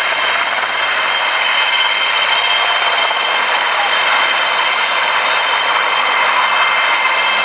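Two Puma military helicopters flying past low, their turbine engines giving a steady high whine over a dense rush of rotor and engine noise. The sound grows a little louder a few seconds in as they come closer.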